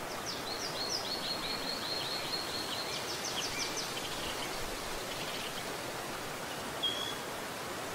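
Small forest stream flowing steadily over rocks. Over it a songbird sings rapid runs of short repeated high notes through the first half, and a brief single whistle comes near the end.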